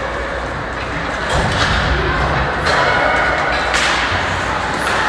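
Ice hockey play in a rink: several sharp knocks and thuds of stick, puck and boards over a steady hiss of skates on the ice, with voices in the background.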